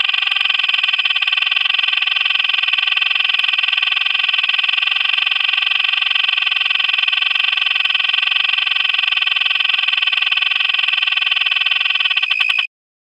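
Physalaemus cicada frogs calling: a loud, steady, cicada-like buzz with a rapid pulse, high and shrill, cutting off suddenly near the end.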